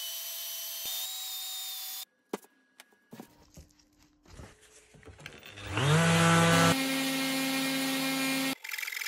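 Electric sanders in quick cuts: a belt sander's motor running steadily, a stretch of a few light knocks, then a disc sander spinning up with a rising whine about six seconds in and running steadily until it cuts off.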